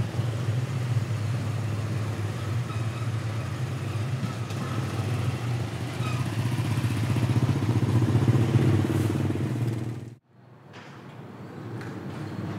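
Motorbike engine running steadily close by, with a pulsing low note. It cuts off abruptly about ten seconds in, and faint, quiet street ambience fades in after it.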